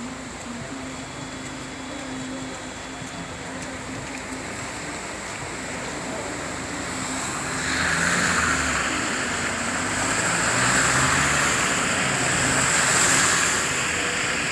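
Car engine running low with tyres swishing through floodwater. From about seven and a half seconds in, a louder rushing of splashing water swells and fades twice as vehicles wade past through the flooded road.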